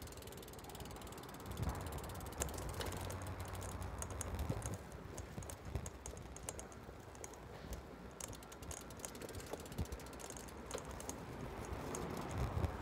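Bicycle rear freewheel ticking with a run of fast clicks as the rider coasts without pedalling, over a low steady rumble.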